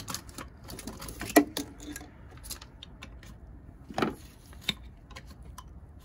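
Irregular light clicks and knocks of gloved hands handling plastic and metal parts in a car's engine bay, the sharpest knock about a second and a half in; the engine is not running.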